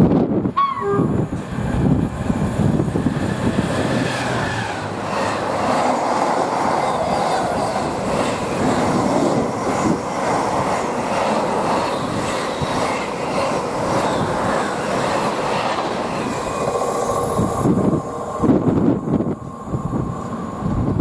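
A train passing close by at speed. Its rolling wheel and rail noise is a long, loud rush with a rattling edge, easing into choppier bursts near the end as it goes by.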